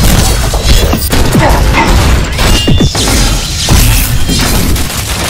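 Sound effects of a giant robot fight: repeated metallic clanks, crashes and heavy impacts, with music underneath.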